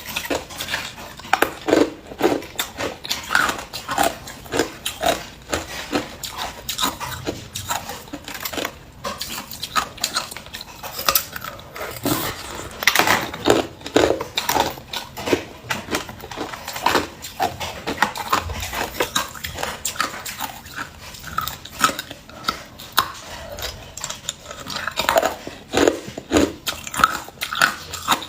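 A person biting and chewing ice, close to the microphone: a dense run of sharp crunches and cracks, one after another, with a few louder bites.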